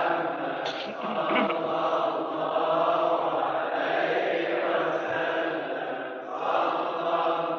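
Men's voices chanting a drawn-out Islamic devotional hymn (ibtihal), the melody held in long sustained notes. There is a short dip about six seconds in before the chanting resumes.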